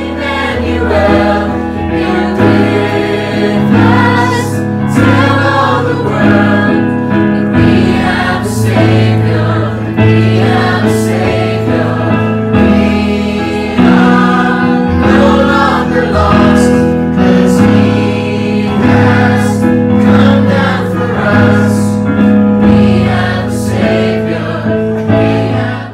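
Choir singing with instrumental backing, over long-held bass chords that change every second or two.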